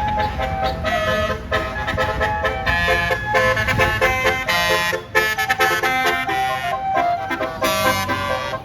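Bus basuri air horn playing a tune of short stepped notes, several horn tones sounding together.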